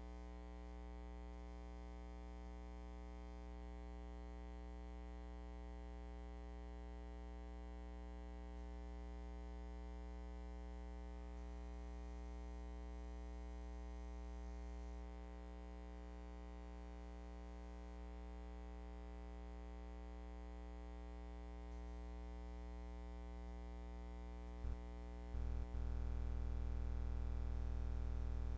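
Steady electrical hum and buzz with many overtones, and nothing else on the track. Near the end there are a couple of clicks, and then the hum comes up louder.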